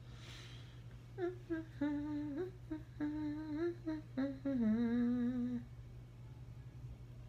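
A woman humming a short tune, a few held notes ending on a longer wavering one, over a steady low background hum.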